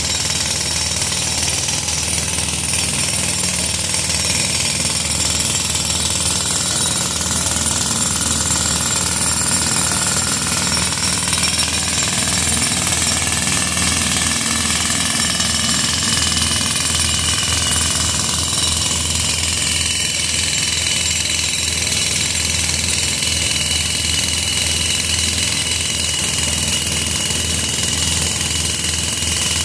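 Jackhammer breaking pavement, hammering steadily without a pause.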